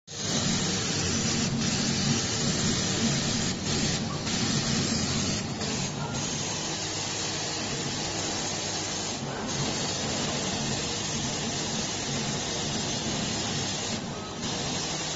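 CNC laser cutting machine at work: a steady hiss, typical of the assist gas blowing through the cutting head, over a low machine hum, with a few brief dips.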